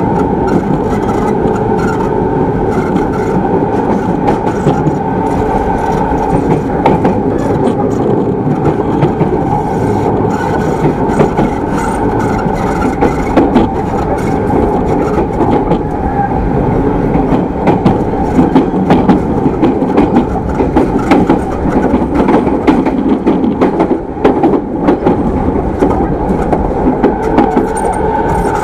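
Running sound inside the motor car of a JR East E217 series electric multiple unit: a steady rumble of wheels on rail with a constant hum and many short clicks and clatters from the track.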